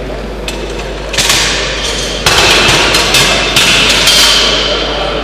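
Steel barbell weight plates clanking in a quick run of sharp metallic strikes, as the plates are loaded onto the bar.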